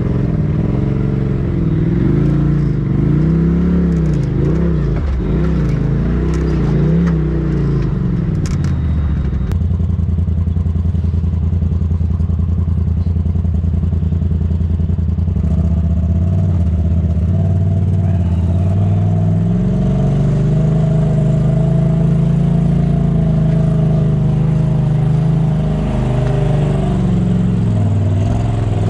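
Polaris RZR side-by-side engine heard from inside the cab, revving up and down in quick pulses as it crawls over rock, with a few clicks and rattles. About a third of the way in it cuts to a steadier engine drone from another RZR that swells and eases more slowly.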